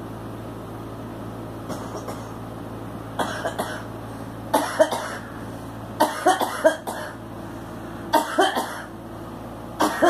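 A woman coughing in several short fits while smoking a cigarette, starting about three seconds in and recurring every second or two.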